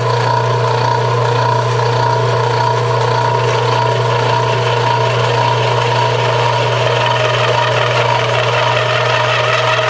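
Lever-knee milling machine running steadily, its end mill cutting through the middle of a metal crosshead: a constant low motor hum with steady higher whining tones over it.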